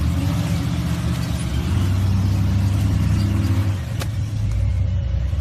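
Jeep Cherokee XJ engine running under load in mud, revving up about two seconds in and easing off near four seconds, with one sharp click just after.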